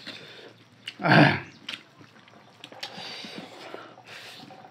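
Close eating sounds of people eating rice and curry by hand: wet chewing, lip smacks and small clicks, with one brief loud voice sound about a second in.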